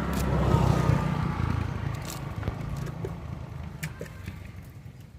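A motor vehicle going by: a low engine rumble with a falling whine, loudest about a second in and then fading, with a few clicks and scrapes.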